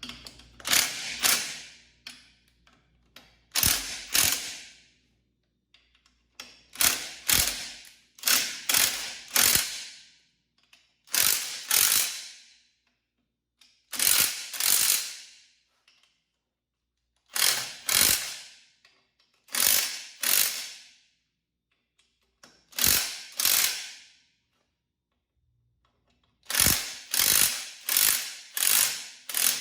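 Hand ratchet wrench clicking in short runs of two to five strokes with pauses between, as bolts are checked for tightness.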